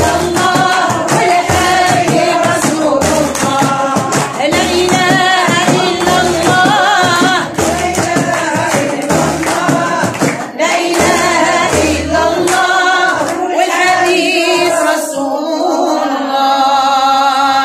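Women singing a devotional chant in praise of the Prophet, with hand-struck frame drums beating a steady rhythm. Near the end the drumming drops away and the singing carries on.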